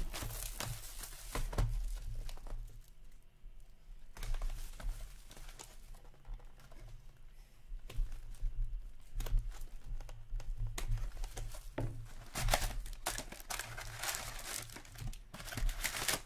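Plastic shrink-wrap crinkling and tearing in repeated bursts as it is stripped off a box of hockey cards, with the cardboard box and foil packs handled in between.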